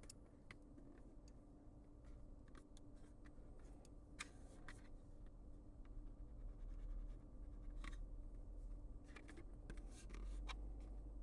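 Faint sound of a metal pen writing on paper: light scratching with scattered small ticks.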